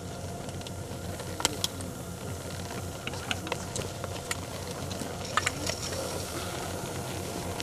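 Ski-lift queue ambience: a steady low rumble with scattered sharp clacks of skis and poles knocking, in pairs about a second and a half in, around three and a half seconds and again around five and a half seconds.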